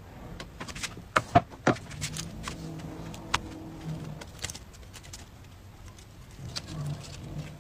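Handling noise from an electric crepe maker as a cooked crepe is peeled off it: a few sharp clicks and knocks, three close together about a second in and another a little later, over a faint low hum.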